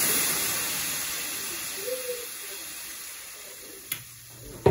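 Canned diced tomatoes sizzling in a hot pan, a steady hiss that is loud at first and dies away gradually. A light click sounds just before the end.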